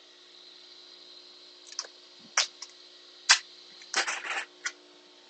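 Duct tape being peeled off the roll, torn and pressed down. Several short sharp snaps, the loudest a little after three seconds, then a half-second rasp about four seconds in.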